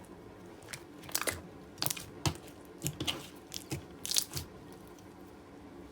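Hands squishing and pulling a gold metallic shimmery slime that is not very sticky, giving irregular crackling clicks and pops, loudest about four seconds in, then dying away.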